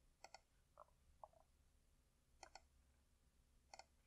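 Faint computer mouse clicks, several short clicks, some in quick pairs, spread over a few seconds.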